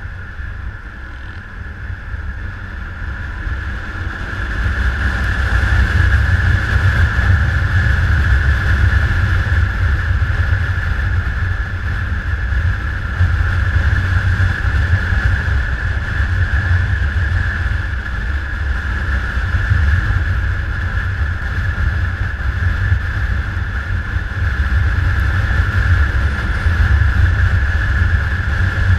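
Motorcycle riding along, with the engine and wind noise making a steady heavy rumble and a constant hiss, growing louder about five seconds in as speed picks up.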